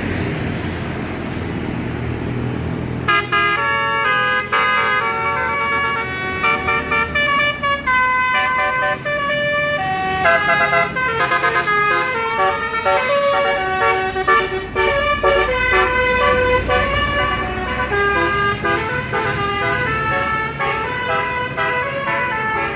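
A bus's basuri musical horn plays a fast tune of short stepped notes, starting about three seconds in, over the low rumble of the bus's running engine.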